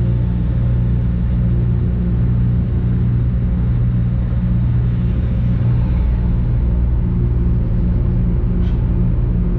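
The ferry Shima Shima Meon's engine running steadily under way, heard on board: a constant low drone made of several fixed low tones over a broad rushing hiss.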